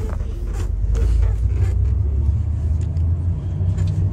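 Low, steady rumble of a passenger van heard from inside its cabin.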